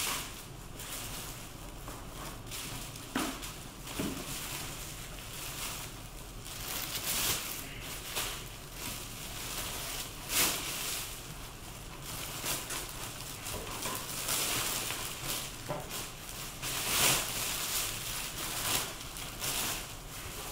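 Plastic wrap around a monitor panel rustling and crinkling as it is pulled off and handled, in irregular surges with a couple of louder crackles about ten and seventeen seconds in.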